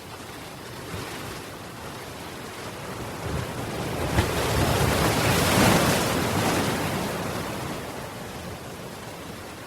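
Ocean waves: one wave builds, breaks on the shore with a rushing surge about halfway through, and washes back out, over a steady background of surf.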